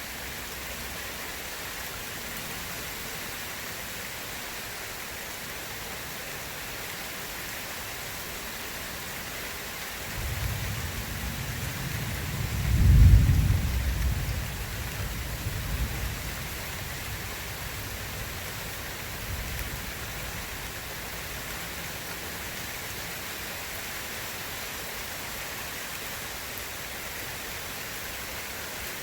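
Steady rain, with a roll of thunder that comes in about a third of the way through, peaks in a deep rumble a few seconds later, and fades back into the rain.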